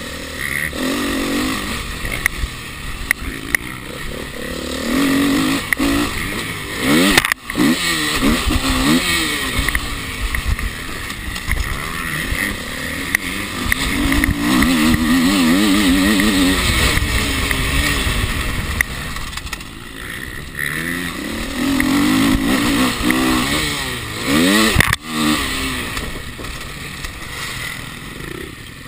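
Four-stroke dirt bike engine revving up and down as it rides, its pitch climbing and dropping again and again through throttle and gear changes. It cuts out sharply twice, about seven seconds in and near twenty-five seconds.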